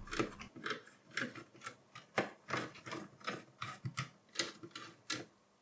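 Precision screwdriver turning the motherboard's mounting screws into a mini PC's metal chassis: a run of faint, irregular small clicks and ticks, about three a second.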